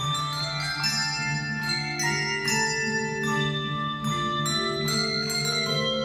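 Massed handbell choirs ringing a piece together: new bell notes struck every half second or so and left ringing, over long-held low tones from the bass bells.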